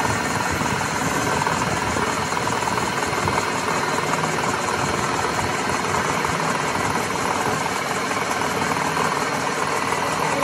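Metal lathe running steadily, its boring tool cutting inside the bore of a spinning gearbox gear and curling off steel chips: the gear's bearing seat being machined out.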